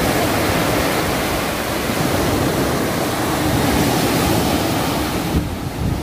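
Small waves breaking and washing up a sandy beach: a steady rush of surf, with wind buffeting the microphone. The rush thins near the end.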